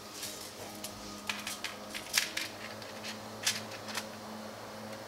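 Scattered sharp clicks and taps from a tape measure being pulled out and held against the underside of a wooden kitchen cabinet, the loudest about two and three and a half seconds in, over a faint steady low hum.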